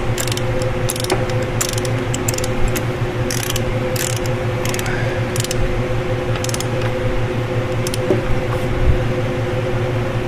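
Socket wrench ratcheting in irregular runs of clicks while the flywheel-to-crankshaft bolts are run down, over a steady background hum.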